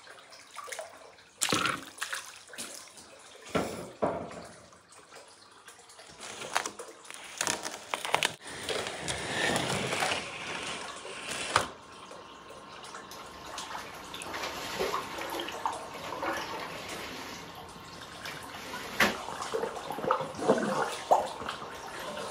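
Water trickling and splashing in a hot spring bath, with scattered small splashes and drips.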